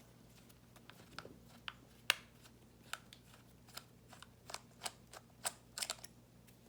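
Light, irregular metallic clicks and ticks of a 1/8 inch Allen key working the bottom frame screws out of an Emek paintball marker, about a dozen sharp taps spread unevenly.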